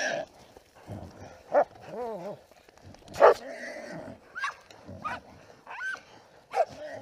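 Hog-hunting dogs barking and yelping in short, separate calls, the loudest bark about three seconds in.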